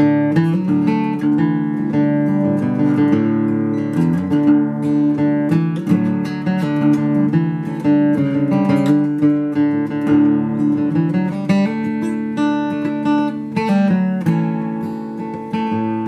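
Ryan Nightingale Grand Soloist acoustic guitar played fingerstyle: a steady stream of plucked notes ringing over sustained bass notes.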